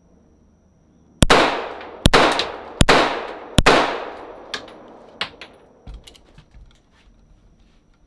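Four unsuppressed shots from a .45 ACP 1911 pistol firing naturally subsonic 230-grain full-metal-jacket rounds, just under a second apart, each followed by an echo that dies away. The meter peaks at about 116 decibels. A few faint clicks follow the last shot.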